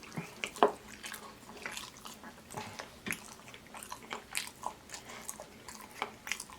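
Close-miked chewing of oxtail: irregular wet smacking and clicking mouth sounds, several a second.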